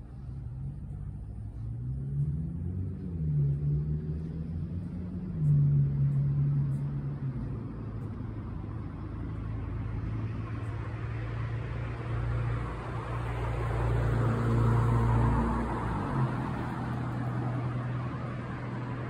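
Road vehicle passing: a low engine hum climbing in pitch in steps over the first few seconds, then holding steady, with road noise swelling to its loudest about 15 seconds in before easing off.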